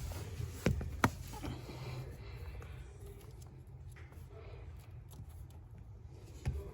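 Low steady rumble inside a 5th-gen Toyota 4Runner's cabin, with two sharp knocks about a second in and another near the end.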